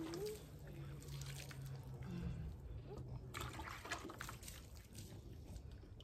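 Water trickling and dripping back into a plastic bucket as a wet cloth is squeezed out over it, with small scattered splashes.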